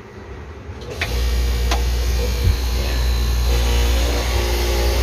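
A loud, steady, low mains hum from the amplifier system comes on with a click about a second in, as a signal cable is plugged into the input of a live Crown power amplifier. Another click follows shortly after.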